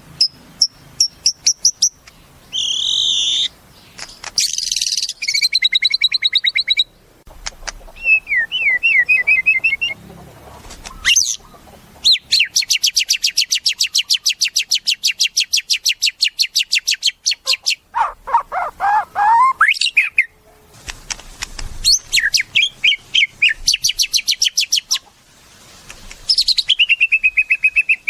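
White-rumped shama singing a long, varied song: rapid trills and repeated chips, a long fast rattle, and whistled phrases that glide up and down, with a lower rolling phrase about two-thirds of the way through.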